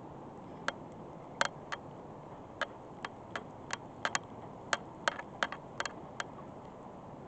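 About fifteen sharp, irregular clicks, spread over some five seconds, over a steady low rushing noise.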